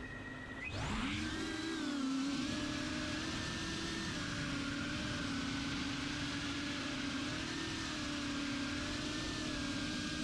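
Small FPV quadcopter's brushless motors and propellers spooling up about a second in, then running as a steady buzzing whine whose pitch wavers slightly with throttle in flight.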